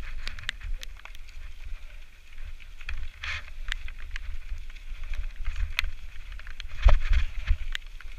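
Mountain bike riding down wet, rocky singletrack: tyres rumbling steadily over dirt and stones, with a scatter of sharp rattles and clicks from the bike and a heavy jolt about seven seconds in.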